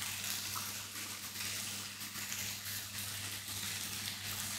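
Chicken sizzling on an electric tabletop grill: a steady frying hiss over a low, even electrical hum.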